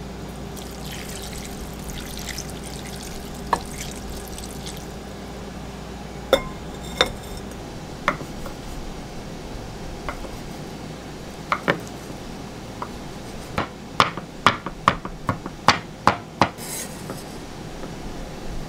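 Shiitake mushroom soaking water poured from a jug over bean sprouts in a ceramic pot for the first few seconds, then a kitchen knife cutting shiitake mushrooms on a wooden cutting board: scattered single cuts, then a quick run of about ten chops near the end.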